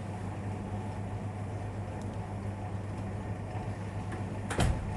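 Steady low hum of airport terminal background noise, with a single sharp knock about four and a half seconds in.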